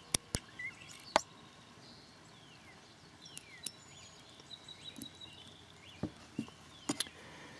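Scattered small metal clicks and taps, irregularly spaced, as a screwdriver tip works against an M1 Carbine's bolt and extractor. Faint birdsong chirps around the middle.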